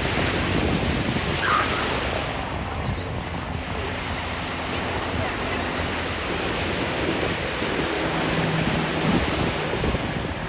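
Ocean waves washing onto the shore, with wind buffeting the microphone.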